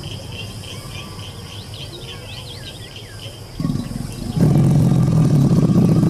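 Birds chirp faintly over a quiet outdoor background. About three and a half seconds in, a deep, rough rumbling growl from an American alligator starts, growing loud from about four and a half seconds in.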